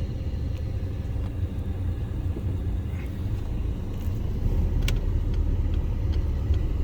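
Steady low road and engine rumble heard from inside a car's cabin while driving, with a sharp click about five seconds in.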